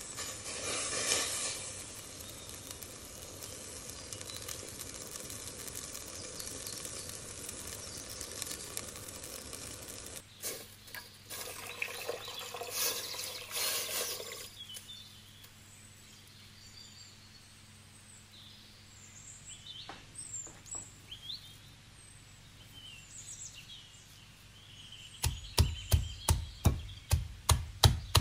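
Water rushing and swirling into a stainless steel pot of salt, peppercorns and bay leaves to make pickling brine. The rush is steady, then stops about half-way through. Near the end a knife chops fresh dill on a wooden cutting board in quick, even strokes, about three a second.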